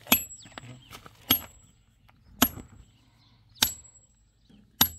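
Steel digging bar working a hole in stony ground: five sharp metal-on-stone strikes about every 1.2 seconds, each with a short metallic ring.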